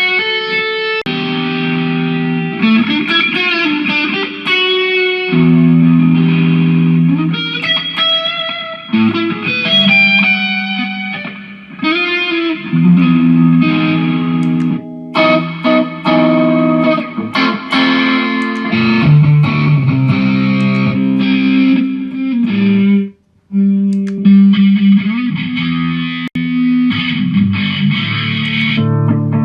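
Electric guitar played through a Mooer GE150 multi-effects processor: a stretch of riffs mixing single notes and held chords, broken off by a short gap about 23 seconds in.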